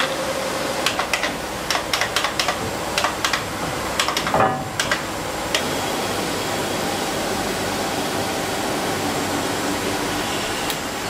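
Factory machinery noise: a steady hiss with a run of sharp clicks and knocks over the first half, after which only the steady hiss continues.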